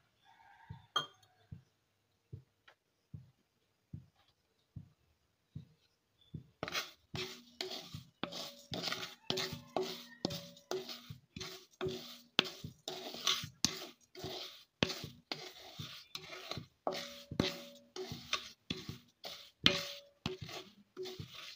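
Wooden spatula stirring and scraping sugar crystals wetted with a little water around a metal kadai. After a few soft knocks, it breaks into a quick run of scraping strokes, several a second, about six seconds in, with the pan ringing faintly under them.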